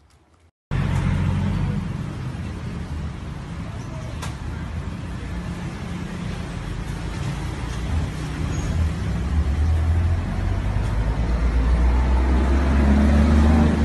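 Low, steady rumble of road traffic, with a motor vehicle's engine running close by, growing louder toward the end.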